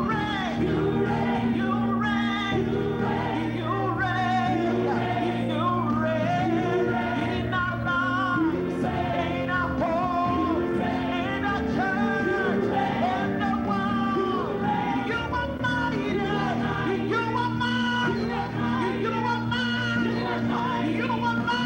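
A gospel praise team singing a worship chorus together into microphones, backed by instruments holding steady low notes.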